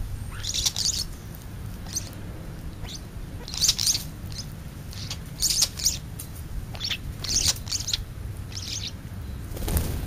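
Small songbirds chirping in short, high bursts, about seven times, over a steady low rumble of wind. Near the end comes a brief flutter of wings as a bird takes off.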